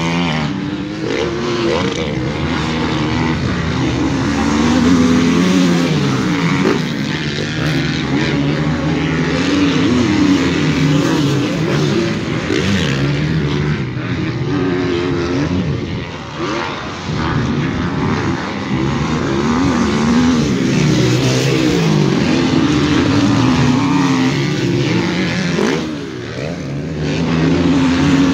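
Motocross bikes racing around a dirt track, their engines revving up and down as the riders open and close the throttle. Several bikes are heard at once.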